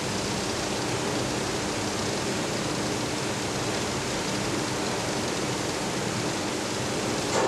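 Glassworker's gas torch flame hissing steadily while annealing a glass-to-metal seal, keeping the glass hot as the metal cools so the glass does not crack.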